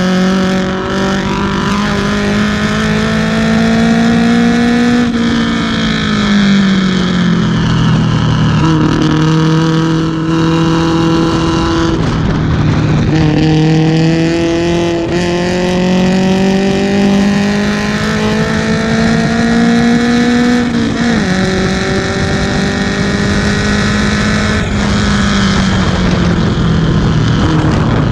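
1970 BMW 2002 race car's four-cylinder engine heard from inside the cockpit at racing speed: it climbs in pitch as the car accelerates, falls away as it slows, holds steady, then climbs and falls away once more.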